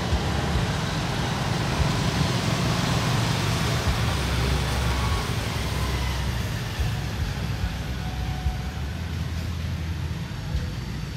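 A steady low rumble of outdoor background noise, with an even hiss above it.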